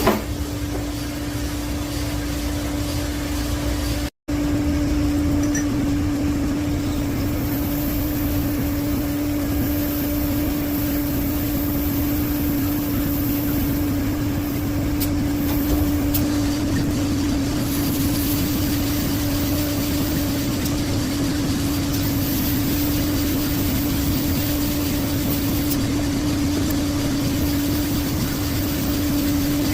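Shop machinery running steadily with a constant hum, broken by a brief cut about four seconds in.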